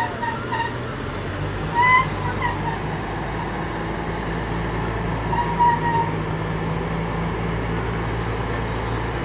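Diesel engine of a large P&H crawler piling rig running steadily. A few short, high whistling tones sound over it in the first few seconds and again around the middle.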